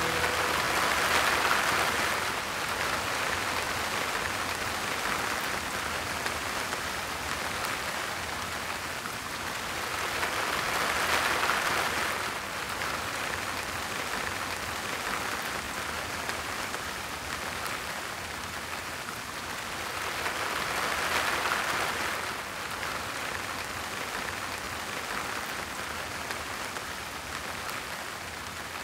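Rain falling steadily, an even hiss that swells and eases about every ten seconds.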